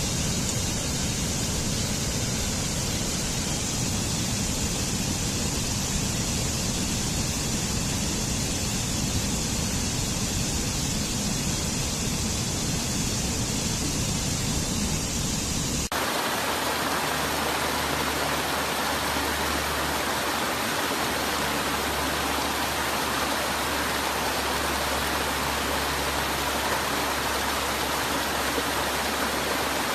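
Steady rush of a waterfall. About halfway through it cuts abruptly to a different water recording with less deep rumble and more hiss.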